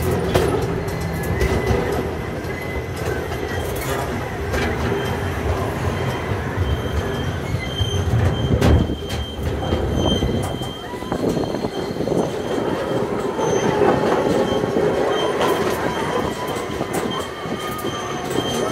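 Brackenridge Park miniature train running along its track, heard from aboard: the wheels rumble and click over the rail joints, with a thin high wheel squeal that comes and goes. The low part of the rumble drops away about ten seconds in.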